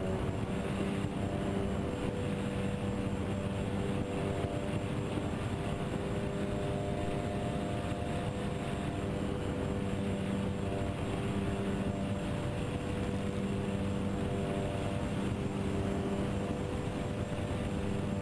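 Twin electric motors and propellers of a Twinstar RC airplane droning steadily in flight, heard from the onboard camera, with wind rumbling on the microphone.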